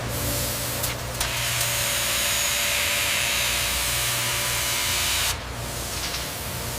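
A steady low machine hum with a loud spraying hiss that starts about a second in and cuts off sharply about five seconds in.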